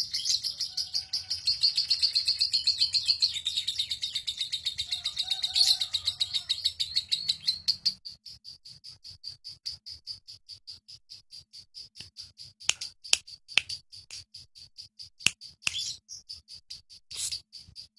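A lovebird's ngekek: one long, unbroken chatter of rapid, evenly repeated high notes. It drops to a quieter level about halfway through but keeps going without a break, and a few sharp, louder chirps stand out near the end.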